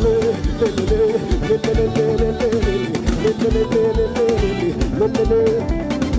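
Upbeat praise band music between sung lines: a guitar plays a repeating melodic line over bass and a steady beat, with no singing.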